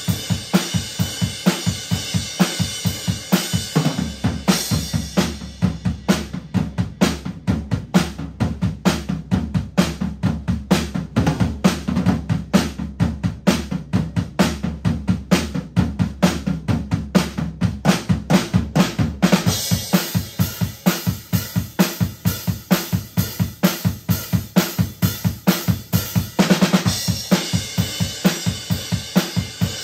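Acoustic drum kit played in a steady groove of kick, snare and cymbals during a studio take. About two-thirds of the way in, it moves to a busier section with cymbals washing continuously over the beat.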